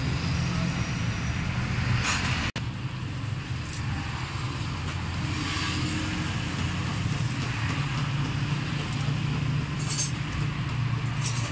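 A steady low engine-like hum with a fine rapid flutter, with a few short light metallic clicks, consistent with tools working on the engine's valve gear; the sound drops out for an instant about two and a half seconds in.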